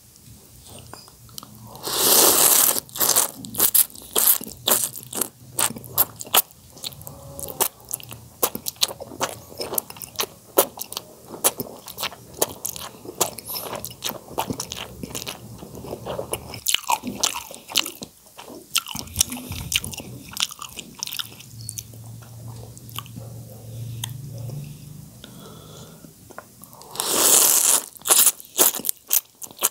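Noodles in soup being slurped into the mouth in two long, loud draws, about two seconds in and again near the end. Between them come wet chewing and lip-smacking clicks.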